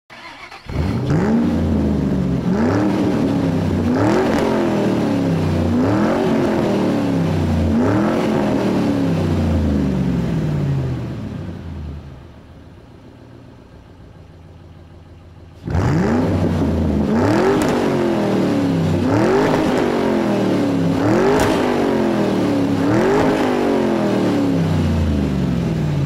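Vehicle engine starting abruptly and revved in quick blips about every two seconds, each rising sharply in pitch and sinking back, five in a row. Then it dies down to a low level for about four seconds, starts again suddenly and is revved five more times.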